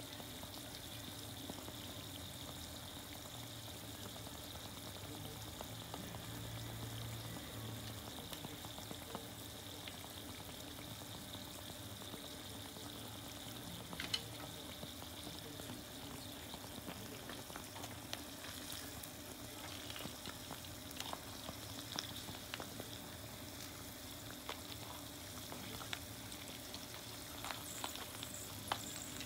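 Karaage chicken deep-frying in oil in a small mess tin: a steady, quiet sizzle with scattered sharp pops of spitting oil, the loudest about halfway through and more of them near the end.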